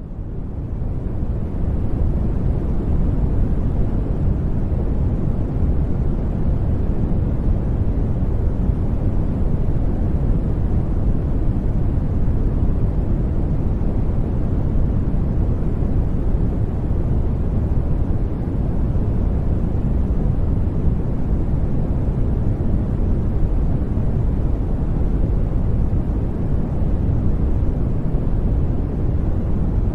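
Steady, deep rumbling noise of the sleep-aid kind, heavy in the bass and muffled in the treble, like brown noise rather than hissy white noise. It swells up over the first second or two, then holds even with no changes.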